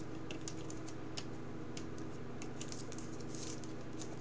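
Faint clicks and soft rustles of trading cards in plastic sleeves being handled, a scatter of small ticks over a steady low hum.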